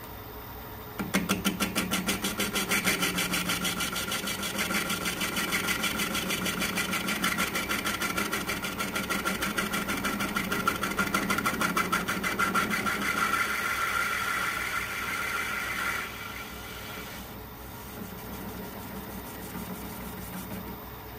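Metal-turning lathe cutting a bronze brake cylinder casting. The cut starts suddenly about a second in as a rapid, regular pulsing. It eases off at about 16 seconds, leaving the lathe running more quietly.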